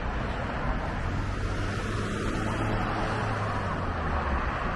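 Road traffic on a busy road: the steady hiss of tyres and engines, with one vehicle's low engine hum from about a second in until near the end.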